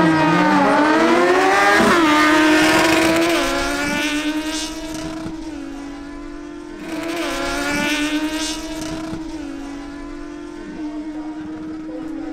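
Two inline-four sport motorcycles, a Kawasaki Ninja Z1000SX and a Suzuki GSX-S750, revving and accelerating hard in a drag race, the engine pitch climbing and dropping back at each gear change. Loudest in the first three seconds, then fading and swelling again about seven seconds in.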